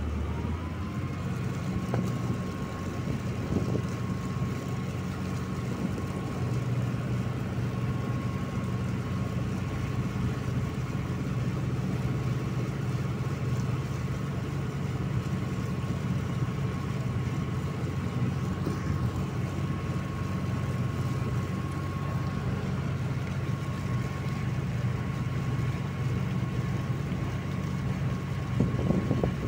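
Motorboat engine running steadily with a low drone and a thin whine above it. Its pitch rises just after the start as the boat gets under way.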